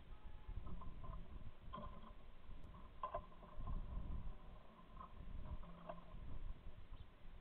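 Low, uneven rumbling noise, typical of wind buffeting the microphone, with a few faint short sounds above it.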